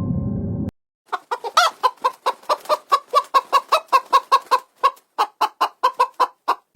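A chicken clucking in a fast, even run of short clucks, about five a second. A short stretch of music at the start cuts off just before the clucking begins.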